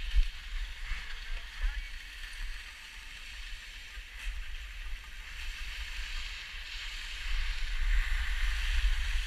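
Skis sliding and scraping over packed snow, a steady hiss that grows louder near the end, with wind rumbling on a helmet-mounted GoPro's microphone.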